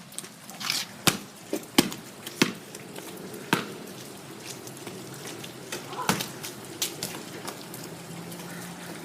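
Heavy rain falling steadily, with a handful of sharp knocks scattered through it.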